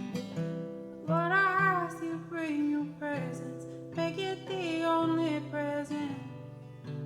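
Acoustic guitar strumming, with a singing voice coming in about a second in and carrying a slow, wavering melody over it.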